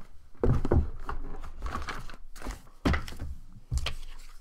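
Cardboard board-game box being handled and moved: a few dull thunks and knocks, about half a second, three seconds and nearly four seconds in, with light handling noise in between.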